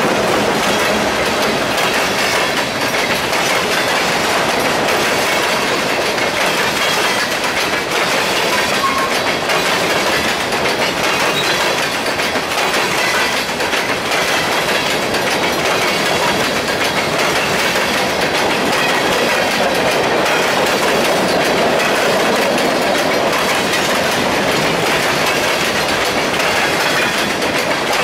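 Empty covered hopper cars of a long freight train rolling past at speed: steady wheel clatter and rattle on the rails, with no break in the sound.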